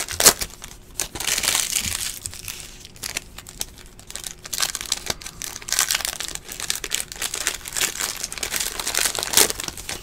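Foil wrapper of a trading-card pack crinkling and tearing in irregular crackles as it is ripped open by hand.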